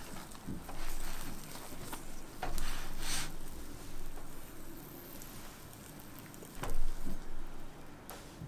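Egg toast frying in a buttered nonstick pan: a light crackling sizzle, with a plastic spatula scraping and pressing against the pan as the omelette is folded over the bread and the stack is lifted and turned. A few louder scrapes stand out, the loudest about two-thirds of the way through.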